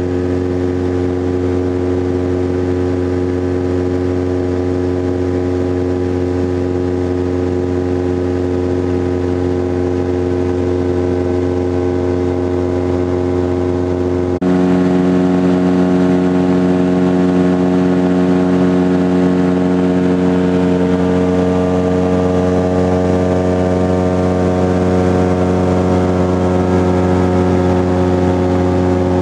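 Titan Tornado light aircraft's engine and propeller running steadily in flight, heard from inside the cockpit. About halfway through the sound abruptly gets a little louder and its tone shifts slightly.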